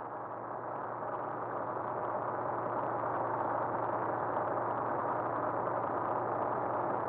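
Aquila A211's propeller and four-cylinder Rotax 912 engine running steadily, heard from inside the cockpit as the aircraft rolls along the runway; a dense, even drone with a low hum, growing slightly louder over the first few seconds.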